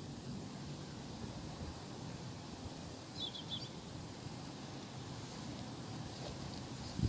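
Wind on the microphone, a steady low rumble, with a small bird giving one quick burst of three or four high chirps about three seconds in.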